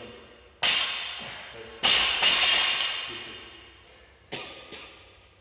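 A loaded barbell with rubber bumper plates (52.5 kg deadlift bar) dropped to the gym floor: a loud impact with metallic ringing about half a second in, a second loud impact about two seconds in that rattles on for about a second, then two lighter knocks near the end.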